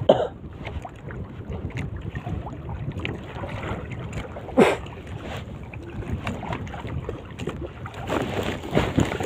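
Small wooden boat rocking on the water, with water lapping at the hull and wind on the microphone. Scattered light knocks against the boat, one louder knock about halfway.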